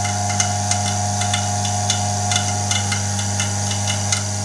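Homemade Farnsworth-Hirsch-Meeks fusor running at power: a steady hum, broken by irregular sharp ticks several times a second as the plasma sparks, arcing between the inner and outer grids.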